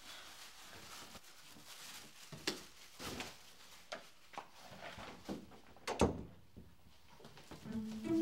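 Soft footsteps and handling knocks, then a wooden door shut with a thump about six seconds in. Plucked and bowed string music begins near the end.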